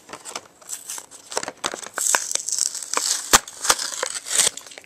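A Hot Wheels blister pack being torn open by hand: the cardboard backing card ripping and the plastic blister crackling and crinkling, in a run of sharp cracks and short rasping tears.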